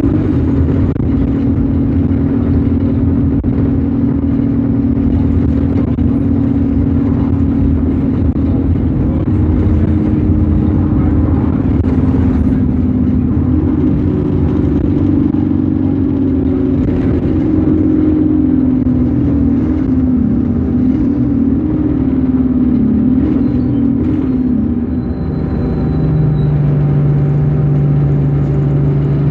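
ADL Enviro 200 Dart single-deck bus's diesel engine running as the bus drives, with a low rumble. The engine note holds steady at first, wavers up and down through the middle, and settles to a lower steady note for the last few seconds.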